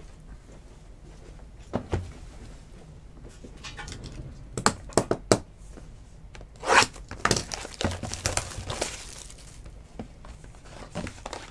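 Plastic shrink wrap being torn and crinkled off a trading-card box, with sharp clicks and taps as the box is handled. The loudest tearing comes a little past the middle.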